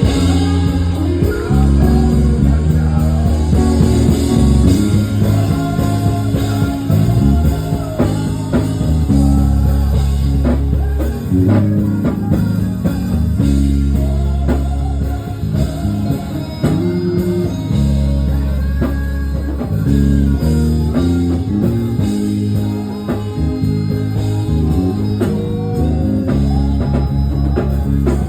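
Live band music with bass guitar, electric guitar and drum kit playing a steady beat.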